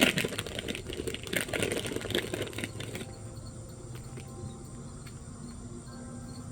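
Insects chirping steadily in the background, with a crackling rustle over about the first three seconds.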